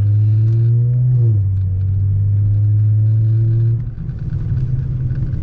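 Tuned Audi S4's turbocharged V6, with catless downpipe and resonator delete, accelerating with its pitch climbing, dropping with an upshift about a second in, then climbing again. Near the end the throttle lifts and the note falls away into a rough, crackling rumble on the overrun.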